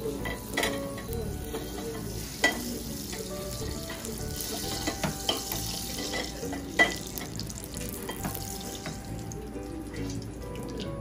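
Butter sizzling and foaming in a small frying pan over a gas flame, with two sharp knocks of the pan or a utensil, about two and a half and seven seconds in.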